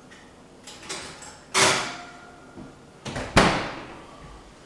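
Kitchen oven door being handled and shut: a few light knocks, then two loud bangs about two seconds apart, each with a short ringing tail.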